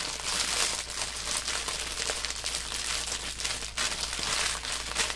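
Thin plastic bags of diamond painting drills crinkling continuously as they are folded and squeezed into a small storage baggie.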